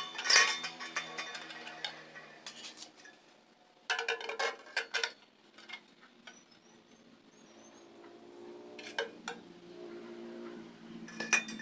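Sharp knocks and clinks of a metal exhaust pipe being handled and pushed into a muffler casing: loudest right at the start, a quick cluster about four seconds in, and single knocks near nine and eleven seconds.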